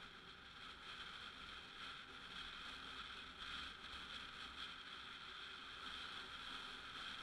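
Faint, steady running noise of a Honda SH150i scooter under way: its single-cylinder engine mixed with wind noise.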